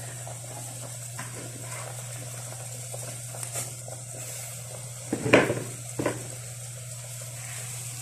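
Fish soup bubbling in a metal pot after malunggay leaves are added, a faint bubbling over a steady low hum. Two sharp knocks against the pot come about five and six seconds in, the first the louder.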